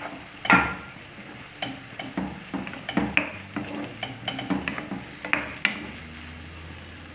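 Chopped tomato frying in a granite-coated frying pan with softened peppers and onion, stirred with a spatula: repeated scraping strokes against the pan over a steady sizzle. The stirring stops near the end, leaving the sizzle alone.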